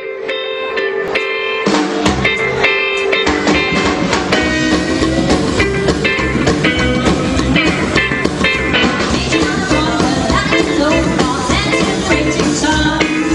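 Rockabilly band playing live at the start of a boogie: electric guitar notes open it, and drums and bass come in with a steady driving beat about two seconds in.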